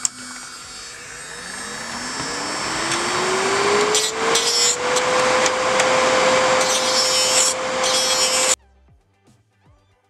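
Electric nail drill (e-file) with a carbide barrel bit: the motor whine rises in pitch as it spins up over the first few seconds, then holds steady while the bit grinds gel polish off an acrylic nail tip with a scratchy sanding sound. About eight and a half seconds in it cuts off abruptly, leaving faint background music.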